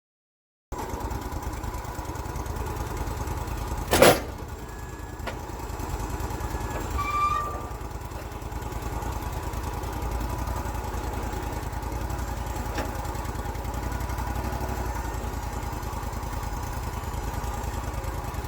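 Wood-Mizer portable band sawmill's engine running steadily, starting abruptly under a second in, with one sharp knock about four seconds in.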